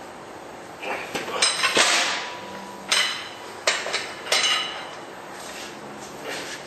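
Steel wheel brace and socket clanking against a truck's wheel nuts: several sharp metallic knocks with a brief ring, bunched in the first two-thirds.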